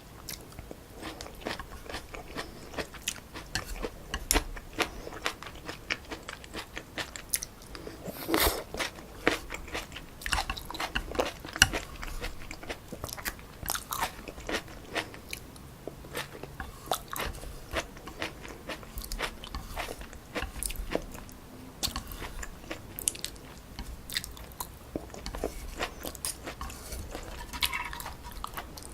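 Close-miked chewing and biting of stir-fried wide glass noodles with pork and vegetables: many irregular, sharp wet clicks and smacks of the mouth.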